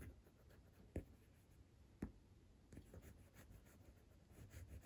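Coloured pencil scratching faintly on watercolour paper in short sketching strokes, with a couple of slightly sharper ticks about one and two seconds in.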